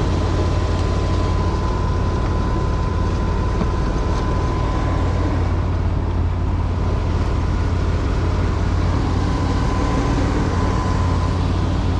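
1998 Chevy Express 4.3L V6 engine idling steadily with the jump box removed, running on its freshly replaced alternator. A thin steady whine sits over the engine and fades near the end.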